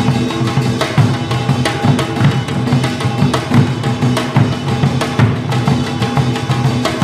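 Korean traditional percussion ensemble playing: buk barrel drums and a janggu hourglass drum beaten with sticks in a fast, dense rhythm.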